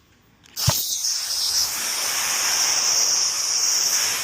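Compressed air starts with a click about half a second in, then hisses steadily as it is blown through a freshly cut hydraulic hose to clear out the grinding debris.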